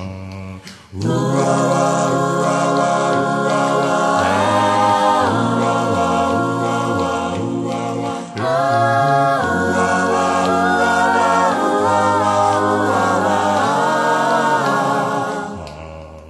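A cappella group of voices singing held chords that move step by step, breaking off briefly about a second in and again about eight seconds in, then fading near the end.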